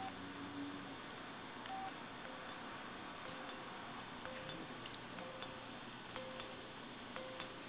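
IM-6100 mobile phone's keys being pressed: sharp button clicks in pairs about once a second, several with a short low key-tone beep, as its keypad sound effects play.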